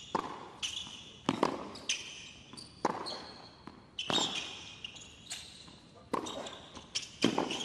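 Tennis rally on a hard court: the ball cracks off the rackets and thuds on the court about once a second, in a large, nearly empty arena that echoes. Short high squeaks of shoes on the court come between the shots.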